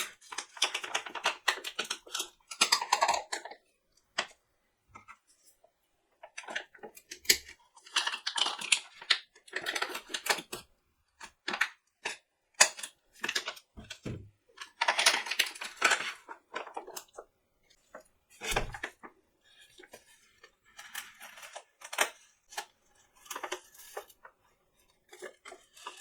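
Hands handling and crinkling the packaging of a bag of ground coffee, in irregular bursts of rustling mixed with sharp clicks and taps.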